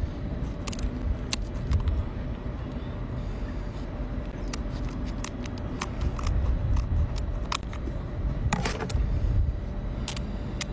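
Kitchen scissors snipping and cracking through the shell of cooked king crab legs: irregular sharp clicks and crunches, the strongest a few seconds before the end, over a steady low rumble.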